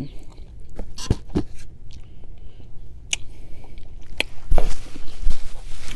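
Close-up eating sounds: a person biting and chewing food, with scattered wet mouth clicks. The chewing gets louder and noisier about four and a half seconds in.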